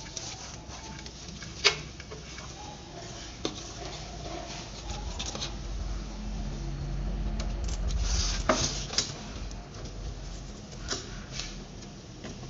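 Handling noise from hands working cables and a fitting under a countertop basin: scattered small clicks and knocks with rubbing, the sharpest about two seconds in, and a low rumble swelling in the middle.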